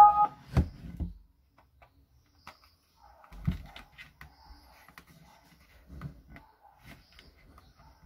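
Handling noise from a plastic portable Bluetooth speaker as it is turned over and its rubber port cover is pried open: a short tone and a knock right at the start, another knock about half a second in, a thump about three and a half seconds in, then faint clicks and rubbing of fingers on plastic and rubber.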